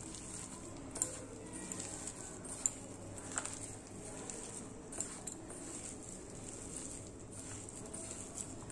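Hand mixing and squeezing a moist boiled-chicken and breadcrumb mixture in a stainless steel bowl: soft squelching, with a few sharp clicks against the steel bowl.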